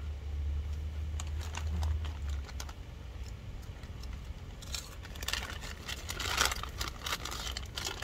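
Snack bag crinkling and rustling as it is handled, loudest from about five to seven and a half seconds in, with scattered small clicks and a low hum that stops about two and a half seconds in.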